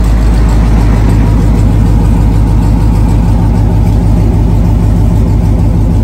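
Car engine idling loudly and steadily.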